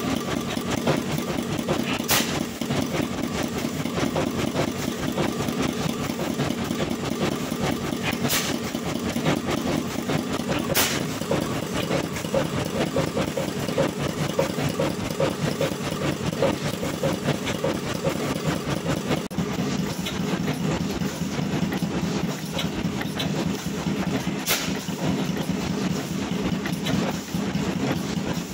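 Vintage stationary engines running steadily with a fast, even chugging and a few sharp clicks. About 19 s in, the sound changes to a Blackstone horizontal single-cylinder oil engine running, its flywheels spinning.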